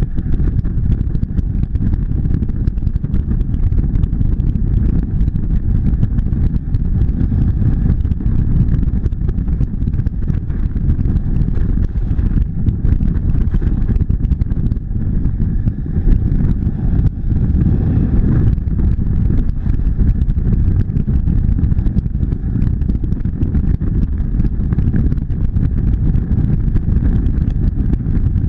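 Motorcycle cruising at steady highway speed: the engine runs at a constant note under a heavy, steady low rumble of wind noise.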